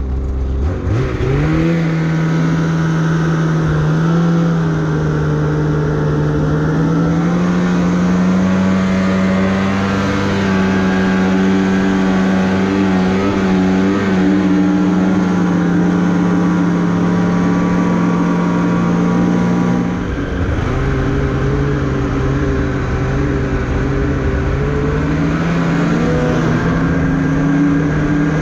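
Snowmobile engine opened up from a low idle about a second in, then running loud at high revs. The revs drop briefly about twenty seconds in and climb again near the end.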